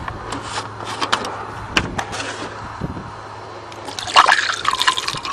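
Recycled antifreeze being poured into the truck's radiator: a few light knocks first, then gurgling and glugging from about four seconds in.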